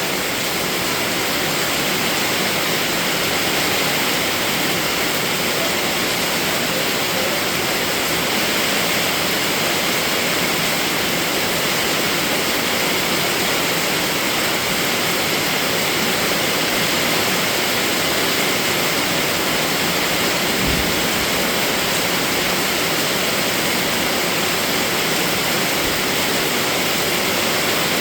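Steady heavy rain, a dense even hiss of falling water with no pauses, and a brief low thump about two-thirds of the way through.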